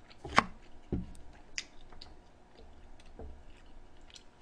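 Quiet eating sounds while chewing braised pork trotter (jokbal): scattered soft clicks and wet smacks, the sharpest about half a second in.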